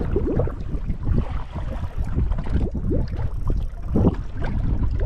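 Wind buffeting the microphone over choppy water lapping against a bass boat's hull, an uneven low rumble.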